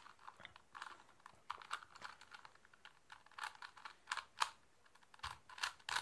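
3x3 Rubik's Cube being twisted by hand: the plastic layers click and clack in light, irregular runs of quick turns.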